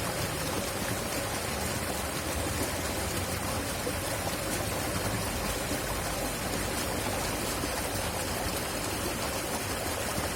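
River water flowing fast, a steady rushing that spreads from low to high pitch.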